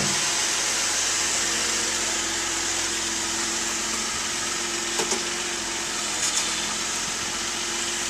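Steady road and engine noise inside the cabin of a moving 2010 Mazda CX-9, with one short click from the front end about five seconds in and a couple of fainter ticks soon after.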